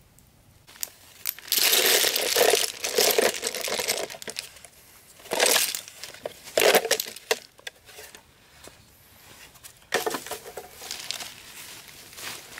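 Leaves and dry forest litter rustling and crunching under a person's hands, in several bursts with pauses. The longest burst comes in the first few seconds.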